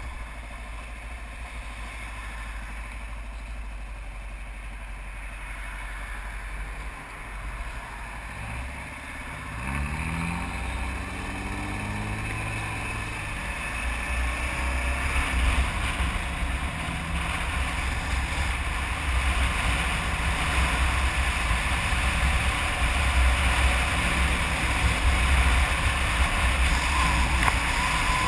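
Kawasaki KLR 650's single-cylinder engine running while riding, with wind rushing over the microphone. About eight seconds in, the engine revs up as the bike accelerates, and the wind and road noise then grow steadily louder as speed builds.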